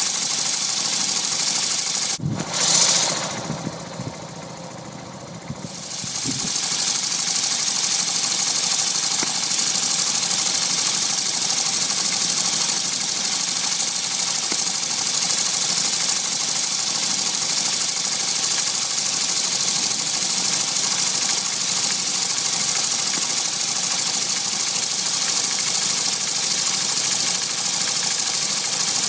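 Steady loud hiss of steam from a homemade model steam engine and its propane-tank boiler, with the engine running on steam. About two seconds in there is a click and the hiss drops away for a few seconds, then builds back up and holds steady.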